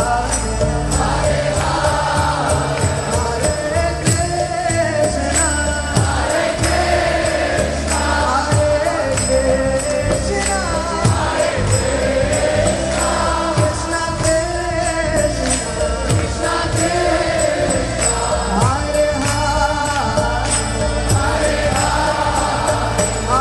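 Devotional song: group voices singing a melody over regular drum beats and a steady low bass.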